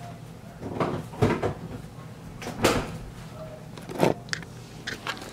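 Several separate knocks and thuds: a plastic milk jug put back on a refrigerator shelf and the refrigerator door shut, then bumps of the camera being picked up. A steady low hum runs underneath.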